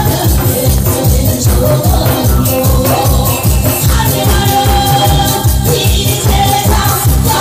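Lively Korean pumba music with a fast, steady beat, the performers clacking pumba taffy-seller's scissors and beating a Korean barrel drum (buk) in time.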